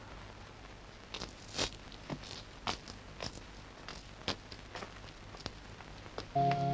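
Faint, scattered clicks and taps at an irregular pace. Film score music with held notes comes in near the end.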